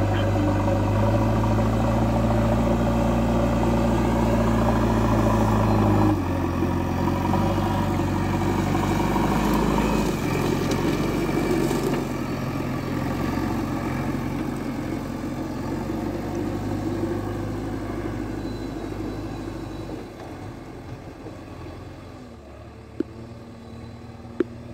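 JCB backhoe loader's diesel engine running as the machine drives. The engine note changes abruptly about six seconds in, then fades over the last several seconds as the machine moves away. A few sharp clicks come near the end.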